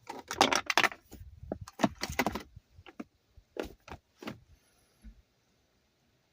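A quick run of rattling clicks, then a few single clicks spaced out over the next few seconds, like small hard objects being handled.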